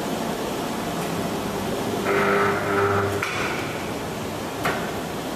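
Automatic spiral paper tube machine running with a steady noise. About two seconds in, its circular blade cuts through the cardboard core with a louder, pitched buzz lasting just over a second, and a single sharp click follows near the end.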